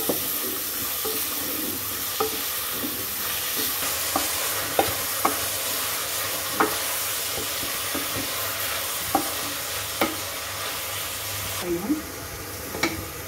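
Sliced onions and green chillies sizzling as they fry in oil in a pressure cooker pot, stirred with a wooden spoon that knocks against the pot at uneven intervals. The sizzle drops a little near the end.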